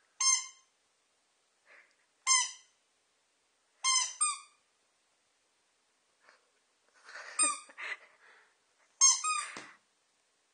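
Rubber squeaky dog toy squeezed five times: short, high squeaks, with a longer pause in the middle.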